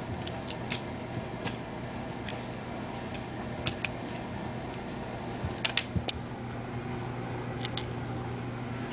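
Plastic crinkling in scattered short crackles as a cat paws and bites at it, with a brief flurry a little past halfway, over a steady low hum.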